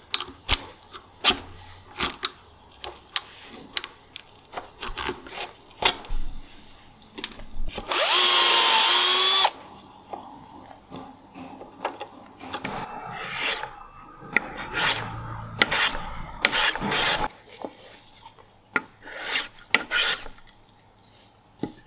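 Woodworking at a bench: knocks and clicks of hand tools, a hand-cranked eggbeater drill boring into a wooden blank. About eight seconds in, a cordless power drill runs for about a second and a half with a steady whine that dips briefly in pitch and cuts off sharply. Near the end come strokes of a hand plane on wood.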